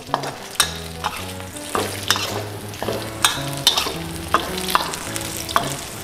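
A metal wok spatula scraping and knocking against a steel wok, two to three strokes a second, as garlic and fried chicken pieces are stir-fried in a little hot oil, with the oil sizzling underneath.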